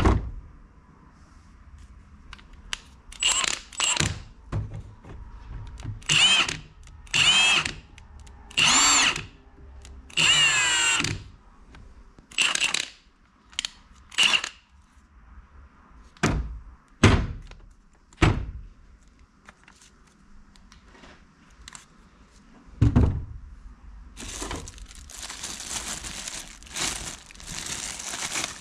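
Milwaukee M18 FUEL 1/2-inch high-torque impact wrench run with no load in several short trigger pulls, its motor whining up and falling away in pitch each time. Later come a few knocks as it is handled, and near the end plastic wrapping crinkles.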